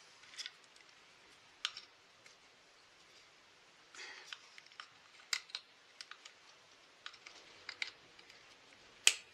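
Small, sharp metal clicks and taps at irregular intervals as needle-nose pliers work small parts inside a vintage Husqvarna chainsaw's carburettor and handle area. The loudest click comes near the end.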